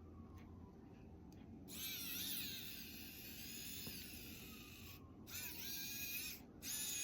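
Small electric screwdriver driving tiny screws into a metal strap end, running in three spurts with brief stops between, its whine wavering in pitch as the load changes.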